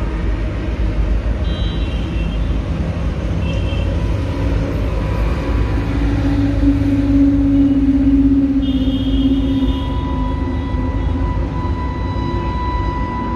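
A steady low rumble, with a droning hum that swells in the middle and then fades, and faint high tones coming and going above it.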